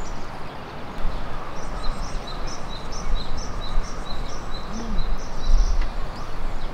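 A small bird singing a quick repeated two-note phrase, a high note then a lower one, about twice a second, over a steady outdoor hiss with a low rumble. The song runs from about a second and a half in to nearly four seconds, stops, and starts again near the end.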